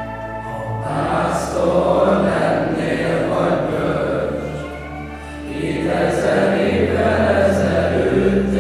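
Male school choir singing in unison over an instrumental accompaniment with held low bass notes, the voices coming in about a second in after the instrumental introduction.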